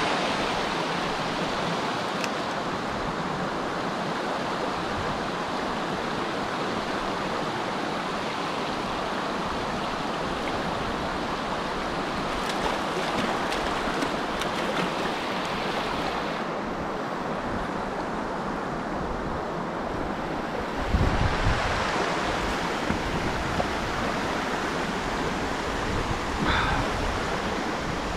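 Shallow river water rushing steadily over a stony riffle. Around the middle come short bursts of splashing as a hooked trout thrashes in the shallows, and later a short low rumble.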